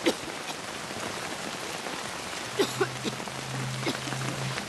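Steady rain falling, with individual drops plinking and splashing; a few drops land louder than the rest. A faint low hum joins about halfway through.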